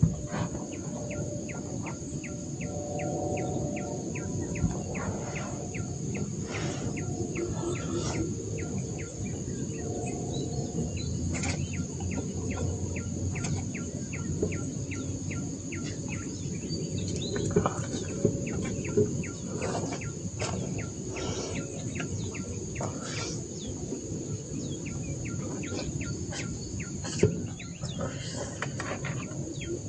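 River-side ambience: a steady high insect drone, a rapid ticking call repeating about three times a second through the first half, and birds calling. Now and then a spoon clinks against a metal pot.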